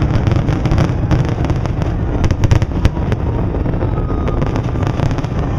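Aerial fireworks going off: a rapid crackle of many small bursts over a heavy low rumble, densest about two to three seconds in.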